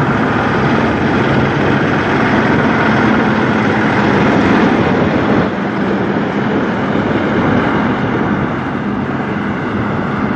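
Peterbilt semi truck's diesel engine running with a steady low drone as the tractor and its loaded flatbed trailer drive slowly past and pull away.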